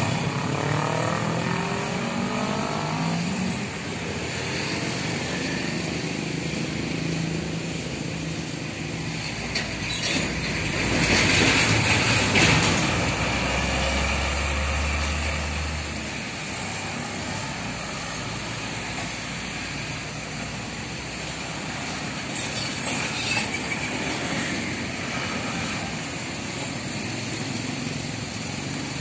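Mixed road traffic passing close by: cars and motorcycles, with an engine rising in pitch as a vehicle pulls away in the first few seconds. Near the middle a heavy dump truck goes past, loudest as it passes, with a deep engine rumble.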